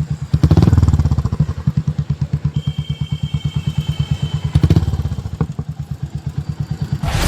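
Royal Enfield Hunter 350's single-cylinder engine idling through an aftermarket 'bazooka' exhaust, a steady beat of about ten pulses a second. There are two short throttle blips, one just after the start and one about four and a half seconds in.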